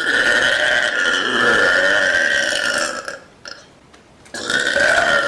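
A young woman burping loudly: one long, drawn-out burp of about three seconds, then after a short pause a second burp starts near the end.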